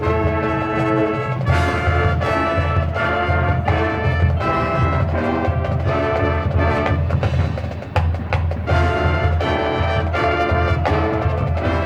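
High school marching band playing: brass chords in short rhythmic phrases over percussion, with a brief drop in loudness about eight seconds in.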